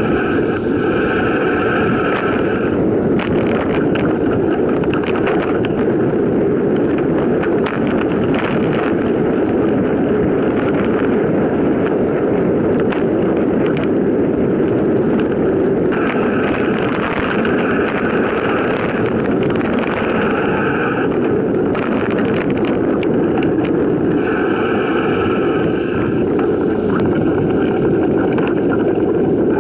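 Steady rushing noise of a mountain bike descending a dirt forest trail: wind over the microphone and tyres rolling on the packed earth, with frequent sharp clicks and rattles from the bumps.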